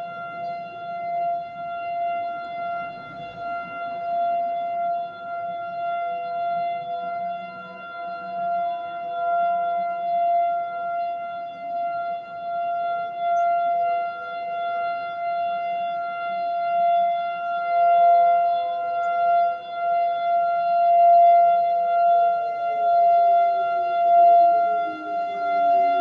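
Outdoor warning siren sounding a steady tone for its monthly test, swelling and fading in loudness. About 22 seconds in, a second, lower tone starts sliding down in pitch while the main tone holds steady.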